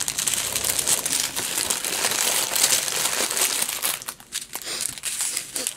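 Small clear plastic bags of diamond-painting drills crinkling as they are picked up and sorted by hand. Dense, continuous crinkling that thins into scattered crackles with short gaps in the last couple of seconds.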